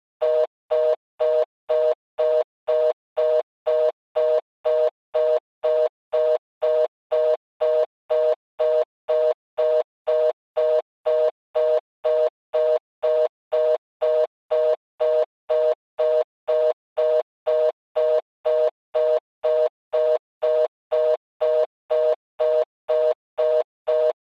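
Telephone fast busy signal (reorder tone): a two-tone beep repeating evenly about twice a second, the sign that the call cannot be completed.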